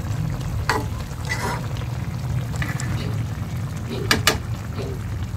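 Tuna steak simmering in sauce in a metal pan, a steady bubbling sizzle. A spatula clacks against the pan once about a second in and twice just after four seconds.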